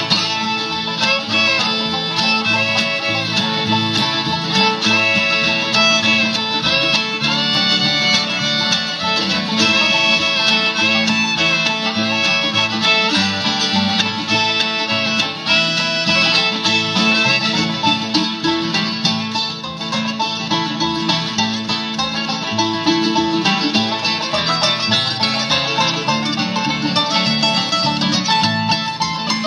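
Bluegrass band playing an instrumental break between verses: fiddle, banjo and guitar with a steady rhythm, no singing.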